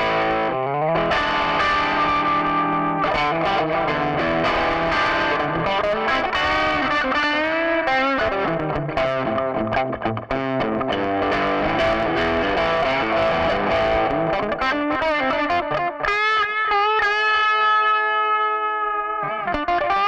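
Electric guitar played through a chain of effect pedals into a valve amp, playing a melodic lead line with string bends. Near the end it settles on a chord that is held and left to ring for a few seconds.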